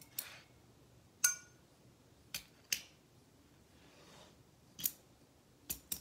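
Sharp metal clicks and clacks from a gravity-claw grappling hook, its spring-loaded jaws working as they are lowered onto a quarter. About seven separate clicks, irregularly spaced; the one a little over a second in has a short metallic ring.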